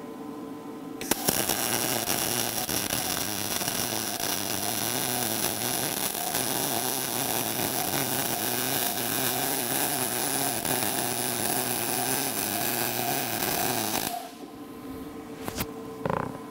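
MIG welding arc from a Lincoln Electric Power MIG 210MP running at default settings with shielding gas, laying a bead on 3/16-inch steel plate: a steady, loud crackle of arc and spatter starting about a second in and cutting off abruptly after about thirteen seconds. A couple of sharp clicks follow near the end.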